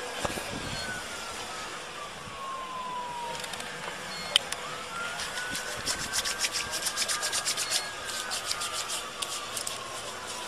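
A distant emergency-vehicle siren wailing slowly down and back up, under scraping and rustling of clothing and the car door rubbing against a body-worn camera. The rubbing crackle is heaviest and loudest from about halfway through.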